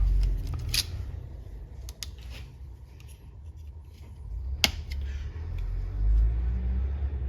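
Seal pick prying and scraping at the output shaft seal of a ZF 8HP70 transmission, giving a few sharp metallic clicks and scrapes, the sharpest nearly five seconds in, as the old seal is worked out of its bore.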